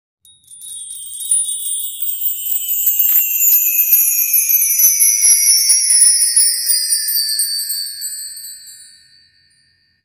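Intro sound effect of high, shimmering chime-like tones gliding slowly downward together, sprinkled with tiny ticks; it swells in over the first second or so and fades out near the end.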